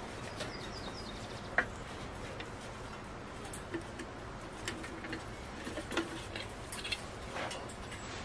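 Small wood fire crackling in a metal twig stove, with scattered ticks and pops and one sharp pop about one and a half seconds in. Light clicks and knocks from the kettle lid and a spoon being handled.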